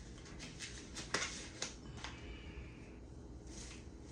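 Disposable exam gloves being pulled onto the hands: light rustling with a few short snaps of the cuffs.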